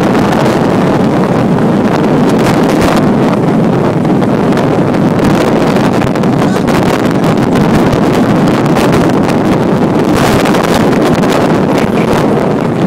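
Strong storm wind buffeting the microphone: loud, continuous rushing and rumbling with frequent sharper gusts.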